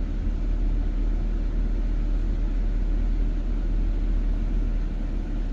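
Steady low road and engine rumble of a car driving at speed, heard from inside the cabin.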